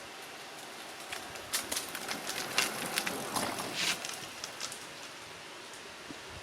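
A run of sharp clicks and rustling over a steady hiss, from about a second in until near the end.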